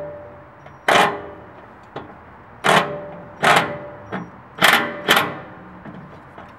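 Five sharp hammer blows at uneven intervals on a 2010 Toyota 4Runner's underbody skid plate fasteners, several leaving a brief metallic ring, as a clip or bolt is driven home.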